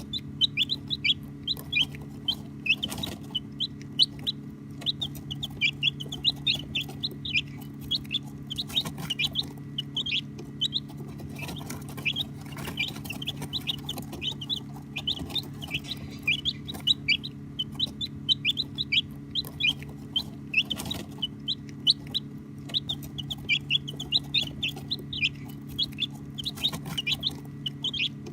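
A group of baby chicks peeping continuously: many short, high, falling peeps overlapping one another, over a steady low hum.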